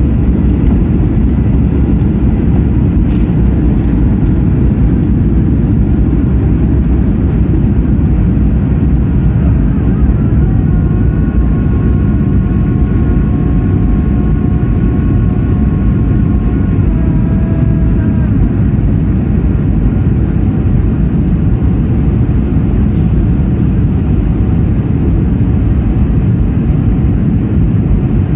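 Steady, loud cabin noise of an Airbus A220-300 in flight, the deep rush of its Pratt & Whitney PW1500G geared turbofans and the airflow heard from a rear window seat. A few faint steady tones rise above it for several seconds midway.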